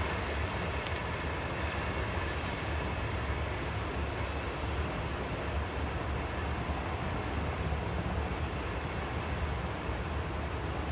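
Eastbound CSX coal train rolling past on the rails: a steady low rumble of wheels and cars. A higher hiss drops out about three seconds in.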